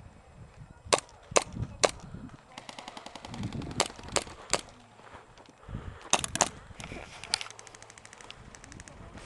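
Airsoft guns firing: a few sharp single shots about a second in, then rapid rattling full-auto bursts mixed with more single shots.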